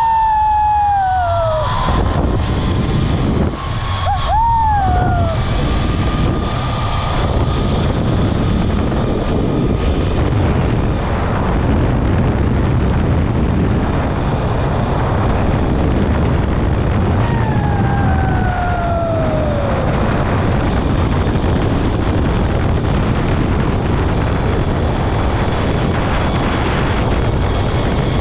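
Steady, loud rush of wind buffeting the microphone during a fast zipline descent, with the ZipRider trolley running along its steel cable. A whining tone falls in pitch near the start, and again about eighteen seconds in.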